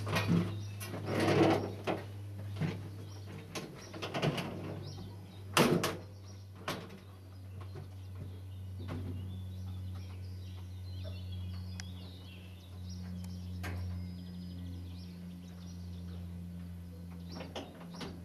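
Knocks and clatter of a person climbing into a Kharkov T-150K tractor's cab and shutting the cab door, in the first several seconds. After that, birds chirping over a steady low hum, with a few clicks near the end.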